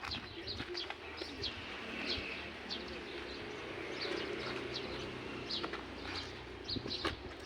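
Small birds chirping over and over in short, high notes, over a steady low hum, with a few sharp knocks.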